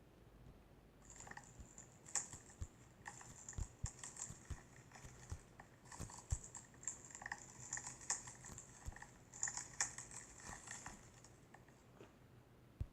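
Slime being squeezed and poked by hand, giving a dense run of small crackling clicks and pops for about ten seconds, then a single soft knock near the end.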